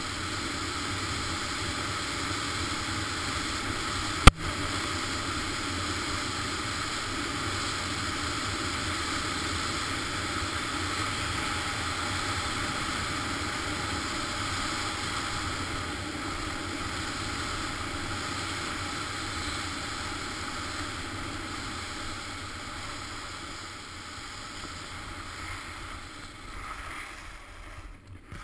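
Steady hiss of skis gliding over groomed snow, mixed with wind rushing over the microphone, with one sharp click about four seconds in. The hiss fades near the end as the skier slows down.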